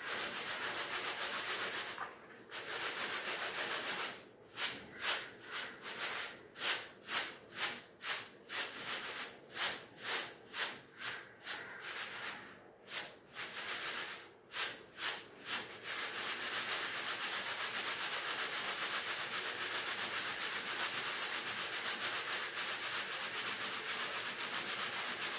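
Split moong dal rustling and scraping in a plastic sieve shaken by hand, sifting the fine powder out from the split halves. It is a dry, steady hiss, with a stretch in the middle of rhythmic shakes about two a second.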